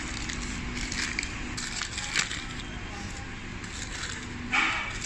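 Paper sandwich wrapper crinkling and rustling as hands open it, with a louder crackle about four and a half seconds in.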